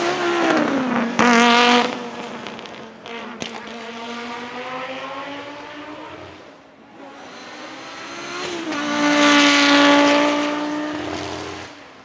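Audi Sport Quattro S1 E2 Group B rally car's turbocharged inline five-cylinder engine under hard acceleration as it goes past, its note dropping in pitch just after the start. A second run follows, building to its loudest about nine to ten seconds in, then fading as the car pulls away.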